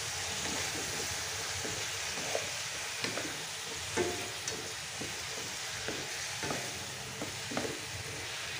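Chicken wings in sweet soy sauce sizzling steadily in a frying pan while a wooden spatula stirs them, with light knocks and scrapes of the spatula against the pan every second or so.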